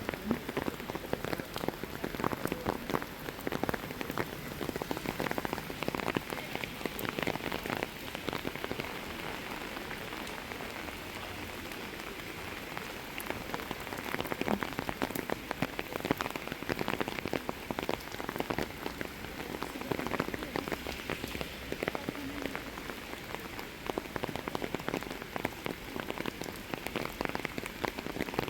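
Steady rain falling, with a dense patter of individual drops hitting close by.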